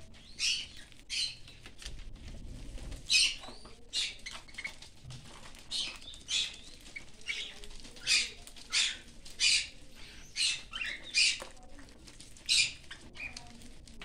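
A flock of cockatiels feeding on seeds and greens: short, sharp high-pitched sounds, one or two a second, over a faint background.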